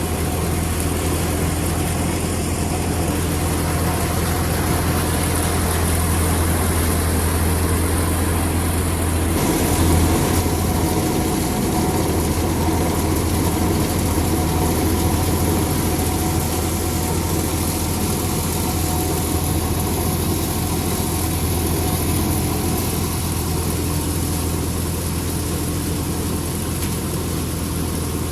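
Sonalika DI 42 RX tractor's diesel engine running steadily, driving a paddy thresher, with a strong low hum throughout. The sound shifts slightly about ten seconds in.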